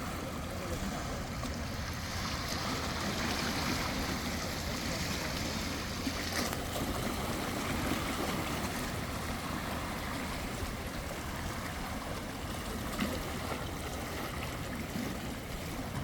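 Sea waves washing onto the shore: a continuous surf wash that swells and eases, with one wave surging more strongly a few seconds in.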